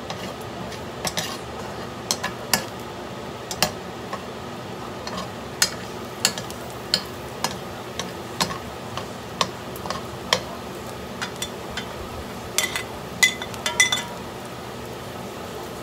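A metal spoon scrapes and knocks against a granite-coated wok while stirring sliced garlic frying in oil, in irregular clicks about once or twice a second over a steady frying sizzle. Near the end a quick run of ringing clinks as a plate is tipped against the pan to add sliced onion.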